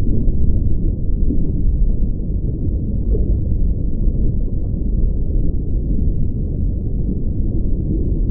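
Steady, muffled low rumble of underwater ambience, with nothing in the upper range.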